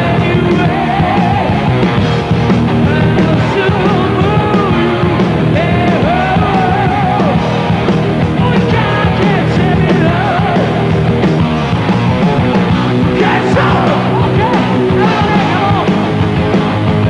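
Live heavy metal band playing loud and steady, with the lead singer belting the vocal line over the band.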